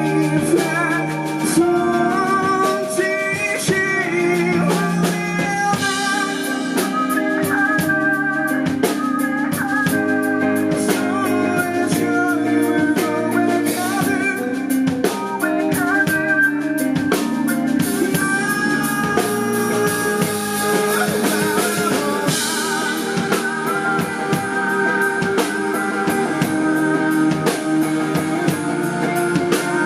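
A band playing live: drum kit and guitar over a steady beat, with singing.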